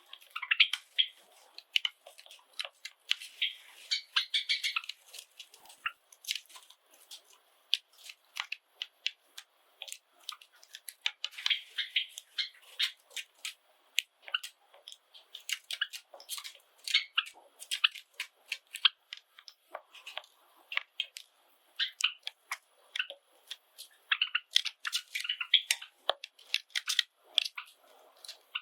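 Java sparrows cracking seeds in their beaks: a steady run of sharp clicks and crunches. Short clusters of high chirping calls come a few seconds in, around the middle and near the end.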